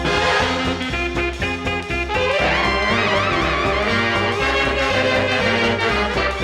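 Upbeat swing-style music with brass over a steady pulsing beat; a wavering horn melody comes in about two seconds in.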